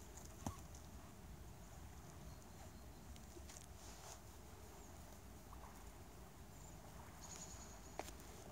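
Near silence: quiet outdoor ambience, broken by two short sharp clicks, one about half a second in and one near the end.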